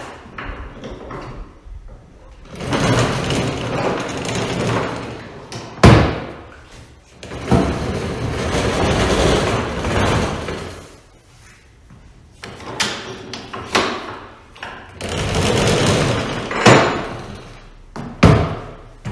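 Heavy wooden workbench rolled across the floor on Rockler workbench casters, in three pushes of a few seconds each. A loud knock comes about six seconds in, and a few sharper clunks follow later.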